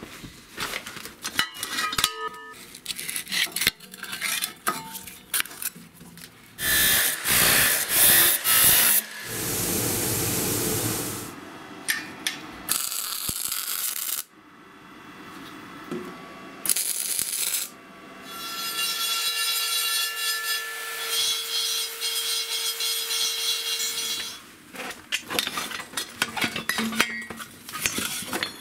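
Workshop metalworking sounds: scattered metallic clicks and knocks, noisy spells of tool work, and a power tool's motor running steadily for several seconds past the middle.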